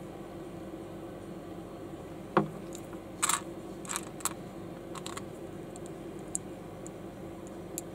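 Small plastic building bricks being handled and pressed together: one sharp snap about two and a half seconds in, then a scatter of lighter clicks, over a steady low background hum.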